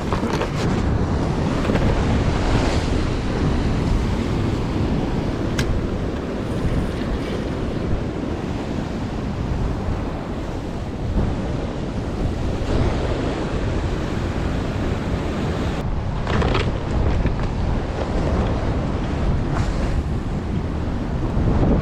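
Strong wind buffeting the microphone over the wash of waves on the shore: a steady, loud rushing with a few brief louder gusts or surges.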